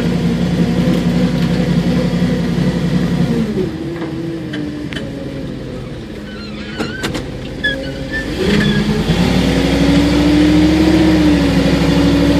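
Ford float truck's engine running as it carries a DHC-2 Beaver seaplane on its floats: steady at first, it drops back about three and a half seconds in, then picks up again about eight and a half seconds in and runs higher and louder. A few light clicks come in the quieter middle stretch.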